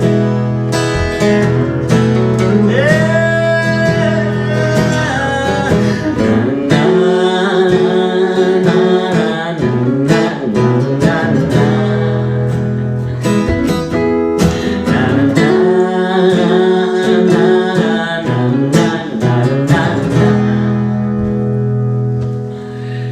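Acoustic guitar music: an instrumental passage of a live acoustic song, chords with a melody line over them.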